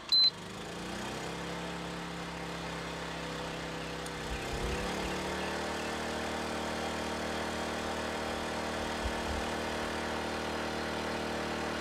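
Predator 2000 inverter generator's engine speeding up as a 1500-watt heater load comes on. After a short beep, its pitch rises over about a second, steps up again about four seconds in, and then runs steady under roughly 1.5 kW of load.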